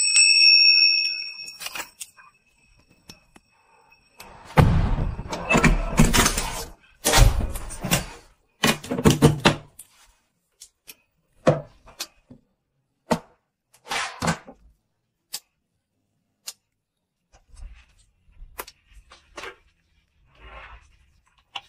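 An electronic tone lasting about a second and a half, then a run of loud thuds and knocks from a front door being opened and shut. After that come scattered light clicks and taps of small objects being handled.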